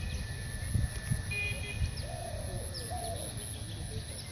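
Birds calling: a low cooing call in the middle, with a few short high chirps, over a steady low rumble.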